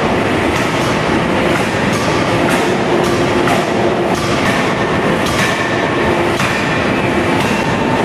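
A 6-tonne fully hydraulic open die forging hammer striking a red-hot bar about once a second. The sharp blows sit over a steady, loud machinery noise.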